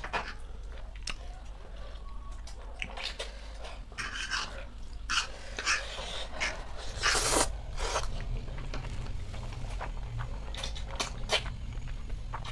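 Close-miked eating of spicy instant noodles: irregular slurping and chewing, with a longer, louder stroke about seven seconds in.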